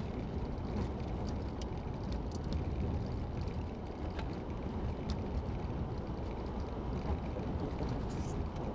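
Steady rumble of a car driving on a paved highway: tyre and road noise, with a few faint ticks.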